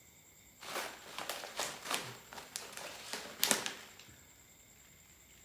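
Airsoft accessories and their plastic packaging being handled: a run of irregular clicks and crinkling rustles lasting about three seconds.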